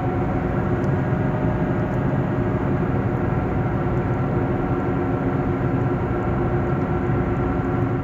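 Steady hum of a worn car wheel bearing in its early stage, heard inside the cabin at steady road speed over tyre and road noise.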